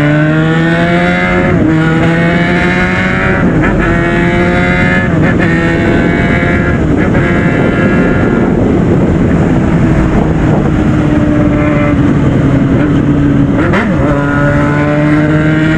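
Yamaha FZ6 Fazer 600's inline-four engine pulling hard under way, its pitch climbing and dropping back at each upshift several times, then holding steady at cruise with a brief dip and pick-up near the end. The rider likens its sound to a helicopter.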